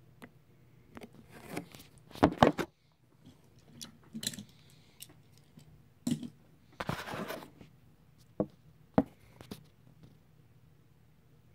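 Close handling noises: scattered clicks, knocks and scrapes as a small die-cast metal toy locomotive is picked up and set back down on a wooden tabletop. The loudest knocks come about two seconds in, a rustling scrape follows a burst about six seconds in, and there are two sharp clicks near the end.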